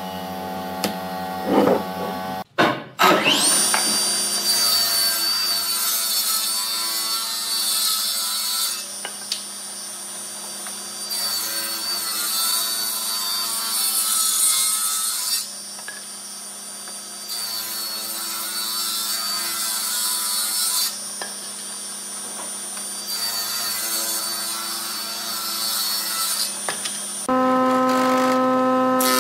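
A few knocks of wooden boards being handled, then a table saw spins up with a rising whine about 3 s in and rips a wooden block in about four long passes, its steady whine running between the cuts. Near the end a wood planer takes over with a lower, steady hum.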